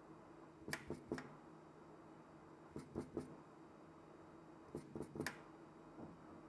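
Small hand tool scraping and clicking against a phone logic board while underfill glue is cleared off. It comes in three short bursts of two or three quick scrapes, about two seconds apart, over a faint steady hum.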